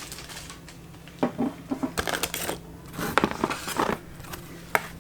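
Packaging and accessories being handled during an unboxing: short clusters of light clicks and knocks with brief plastic rustles, in two spells and one last click near the end.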